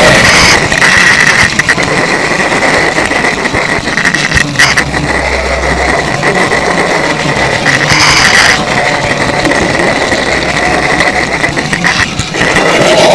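N gauge model train running right by the microphone: a steady high motor whine with constant rattling and clicking of the wheels on the track.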